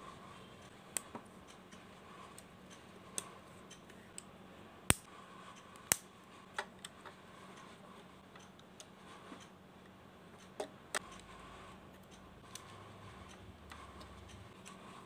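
Lego plastic pieces being handled and fitted: scattered sharp plastic clicks and taps, the two loudest about five and six seconds in, over a faint steady hum.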